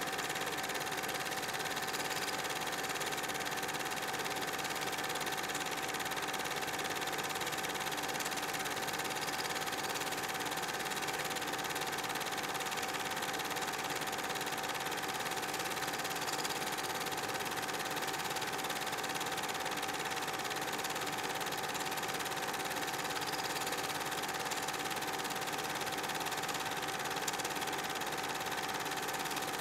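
8mm cine projector running: a steady mechanical whirr and clatter with one constant tone, unchanged throughout.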